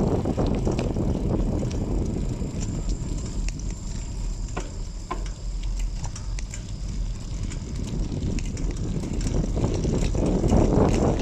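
Wind rumbling on the microphone while riding a bicycle, with scattered light ticks and rattles. The rumble eases through the middle and builds again near the end.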